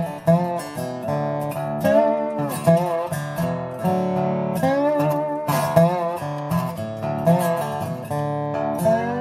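Acoustic guitar playing a blues instrumental: plucked notes, some of them sliding in pitch.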